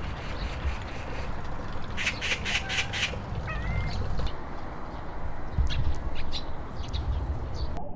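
Magpie chattering: a run of about six rapid, harsh calls about two seconds in, with a few scattered single calls later. A low steady rumble runs underneath.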